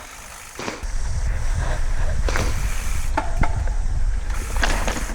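Mountain bike ridden down a dirt trail: wind rumbling on the microphone, with sharp knocks and rattles from the bike several times.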